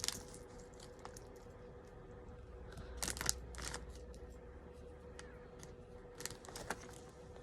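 Faint scattered clicks and rustles of Lego bricks and plastic being handled, with small clusters of louder clacks about three seconds in and again near six seconds, over a faint steady hum.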